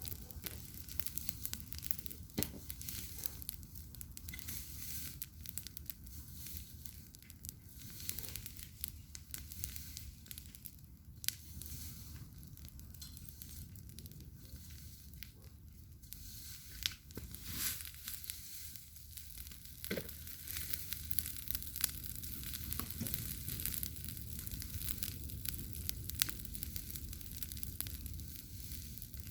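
Campfire crackling and hissing, with irregular sharp pops scattered throughout.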